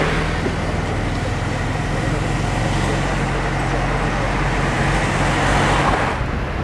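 Road noise from a moving car: a steady low engine hum under a rush of tyre and wind noise. The rush swells around five seconds in, then thins out shortly before the end.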